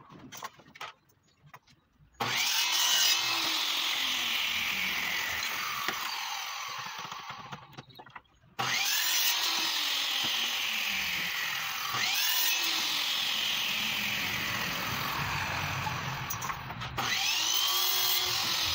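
DeWalt compound miter saw cutting a wooden strip, started four times. Each time the motor spins up with a rising whine, cuts through the wood and winds down with a slowly falling whine. Light clicks of the wood being set against the fence come first.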